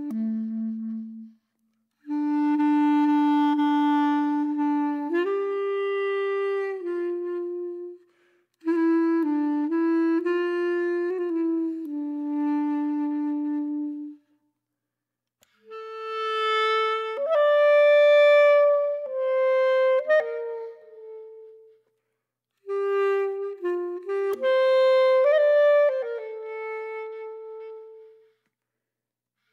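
Music: a solo woodwind melody, one note at a time, played in phrases a few seconds long with short silences between them.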